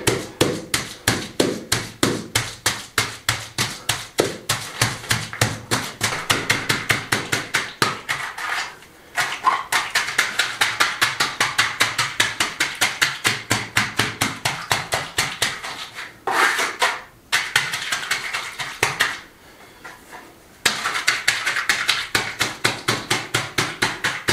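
A timber board tamped over and over on freshly laid limecrete to compact it: fast, even knocks at about four a second, stopping briefly a few times.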